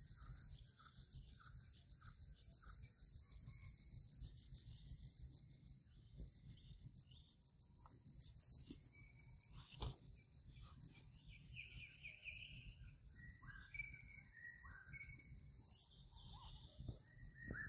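An insect chirping high and shrill in a fast, even pulse, stopping briefly about six seconds and again about thirteen seconds in. Faint bird chirps sound underneath, mostly in the second half.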